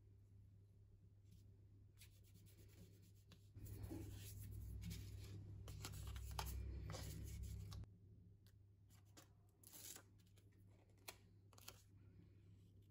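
Soft rustling and rubbing of paper as hands handle torn paper strips and a small photo print on a kraft-paper envelope, louder through the middle with scattered light clicks, then two light taps near the end.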